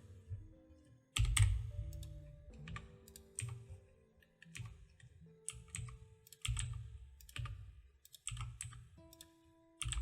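Computer keyboard keystrokes at irregular intervals, single presses with a low thud to each, over quiet background music with held notes.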